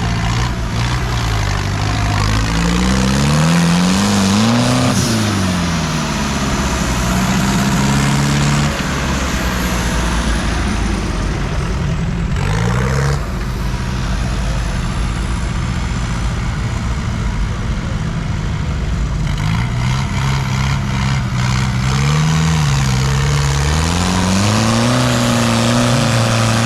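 Off-road 4x4 engine revving as the vehicle works across rough terrain, its note rising and falling several times over a steady rumble.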